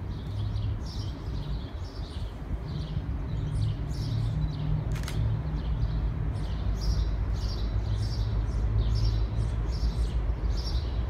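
Small birds chirping repeatedly over a low, steady engine-like rumble that slowly grows louder.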